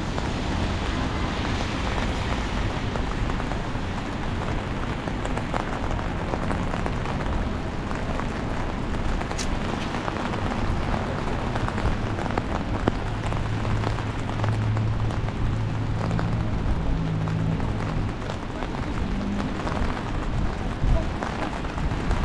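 Steady hiss of rain and car tyres on wet city streets, with a low steady hum between about 13 and 18 seconds in.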